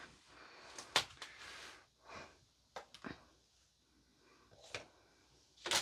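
Quiet handling of small packaging and kit items: a few soft clicks and faint rustles, with a louder rustle starting right at the end.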